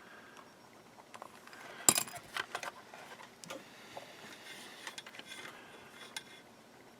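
Small metal tools clicking and scratching against a circuit board as its traces are scraped and probed, with one sharper click about two seconds in and a few lighter ticks after it.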